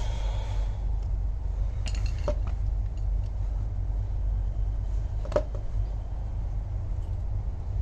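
A few sharp metallic clinks of tools or parts being handled during car door work, about three of them, over a steady low rumble.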